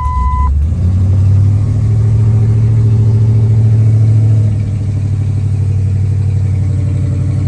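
Supercharged Ford F150 engine catching after cranking with a short beep at the start, then running at a raised idle that drops to a lower, steady idle about four and a half seconds in. It is the no-crank, no-start fault cleared by a replacement PCM relay fuse.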